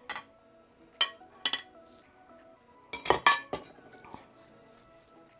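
Metal pots and kitchenware knocking and clinking as they are handled: a few separate clanks, each with a short ring, the loudest cluster about three seconds in. Faint background music underneath.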